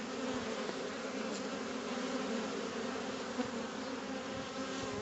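Honeybees humming around their hives: a steady, many-voiced drone of a whole apiary of colonies flying actively after wintering, foragers bringing in pollen.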